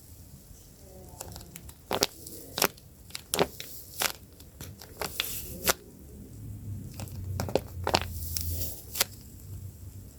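Crinkling, tearing and crackling of a paper-and-tape squishy being handled, with about a dozen sharp, irregular clicks and taps.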